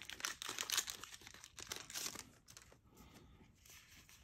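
Foil Yu-Gi-Oh booster pack wrapper crinkling and tearing as it is opened by hand, a dense rustle that dies down about two and a half seconds in.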